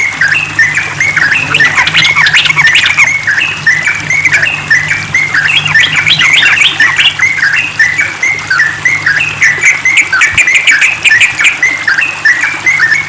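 Yellow-vented bulbul singing a rapid, unbroken run of short chattering notes, several a second.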